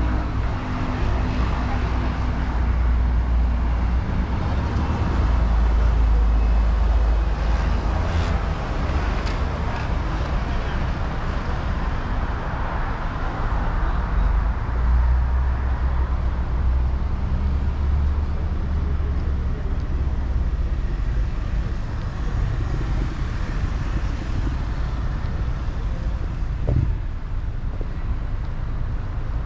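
Street traffic: motor vehicles passing with a steady low engine rumble that swells and eases.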